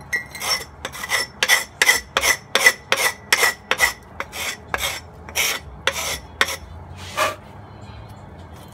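Hand tool being stroked back and forth over the cut end of metal turbo intercooler piping, like a file deburring the edge: about two and a half rasping strokes a second. It stops after about six and a half seconds, with one last stroke shortly after.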